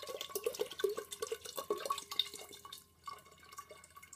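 Water poured from a pitcher into a glass fishbowl, a fast run of splashes and plops into the water already in the bowl, growing fainter after about three seconds.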